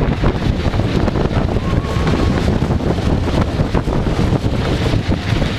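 Wooden roller coaster train rumbling and clattering steadily along its track at speed, with heavy wind buffeting the microphone.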